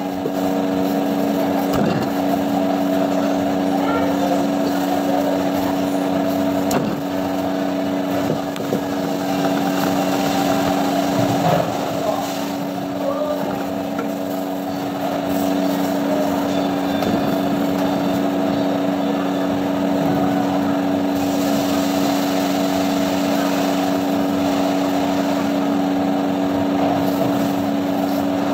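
Steady drone of a motor running in a commercial kitchen, holding several pitches unchanged throughout. A few light knocks of a cleaver on a wooden chopping block come through it.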